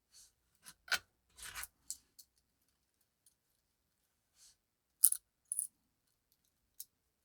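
A metal watch clasp being worked by hand, giving a scatter of small sharp clicks and clinks. The loudest pair of clicks comes about five seconds in.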